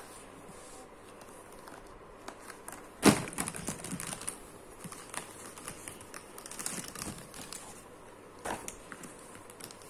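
Plastic brush pens tipped out of their box, clattering onto the paper. A sharp knock about three seconds in is followed by a run of light clicks, and there is another knock near the end.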